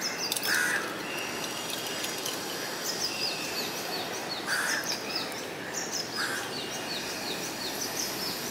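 Crows cawing three times, a few seconds apart, over a steady run of short, high, falling chirps from small birds and a constant outdoor background hiss.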